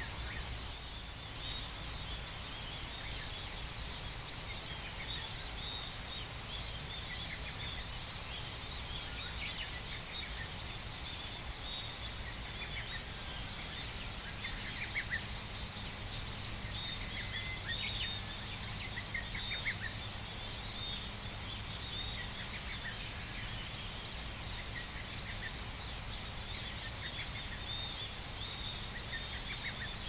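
Dawn countryside ambience: birds calling, with clusters of quick repeated chirps in the middle, over a steady high insect buzz and a low background rumble.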